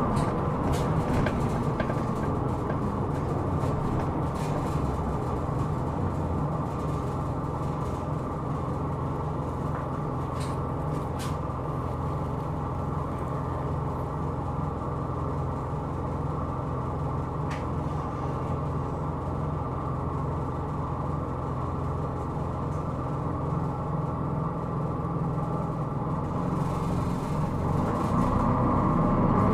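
Hino Rainbow II non-step bus running at a steady speed, heard from inside the cabin: a steady diesel engine note and road noise, with a few light clicks or rattles. Near the end the engine note begins to rise as the bus accelerates.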